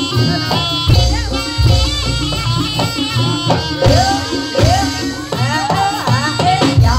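East Javanese jaranan senterewe music played by the troupe: a melody with sliding, bending notes over deep drum beats.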